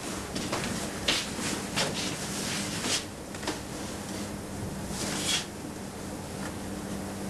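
Scattered light knocks and rustles of a person moving with a large backpack, the clearest about 1, 2, 3 and 5 seconds in, over a low steady hum.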